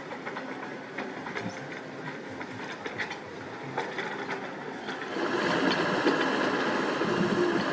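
Sany SY75C hydraulic excavator working, its diesel engine running with scattered metallic clanks and knocks. About five seconds in the engine gets clearly louder and stays there.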